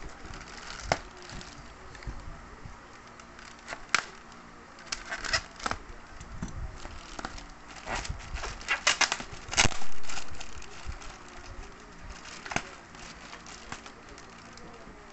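Plastic parcel wrapping being handled: scattered crinkles, crackles and light knocks, with a burst of louder crackling about nine to ten seconds in.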